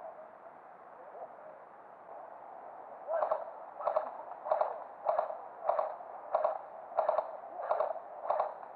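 Footsteps at a walking pace, about one and a half a second, starting about three seconds in.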